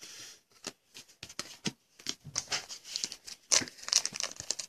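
Foil wrapper of a 2014 Panini Contenders football card pack being torn open and crinkled by hand: irregular crackling rustles, loudest near the end.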